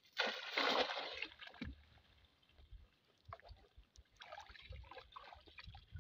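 A weighted cast net lands on shallow water with a splashing rush lasting about a second. Softer sloshing and dripping follow near the end as the net is hauled in.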